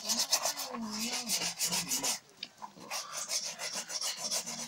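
Shoe brush scrubbing a black shoe, its bristles rasping over the shoe in rapid back-and-forth strokes as polish is worked in to bring up a shine. The strokes let up briefly about two seconds in.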